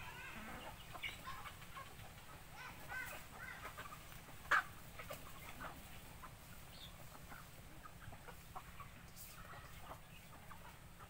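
Chickens clucking in short, scattered calls while they feed, with one sharp click about four and a half seconds in.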